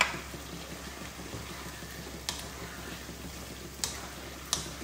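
Wooden spatula stirring mutton curry in a non-stick frying pan, knocking sharply against the pan four times, over a steady simmering hiss.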